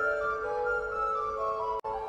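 Instrumental background music: a slow melody of held notes stepping down in pitch, with a momentary dropout near the end.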